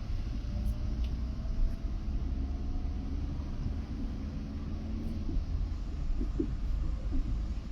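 Steady low rumble of a vehicle's engine and road noise, heard from inside the vehicle in slow traffic.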